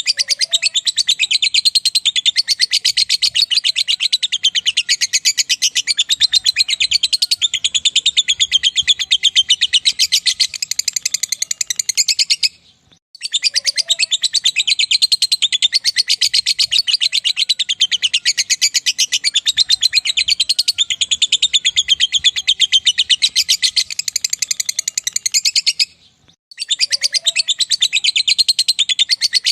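Lovebird giving its long 'ngekek' song: a fast, unbroken string of high chattering chirps. It stops for a moment about 13 seconds in and again near the end, then starts straight back up.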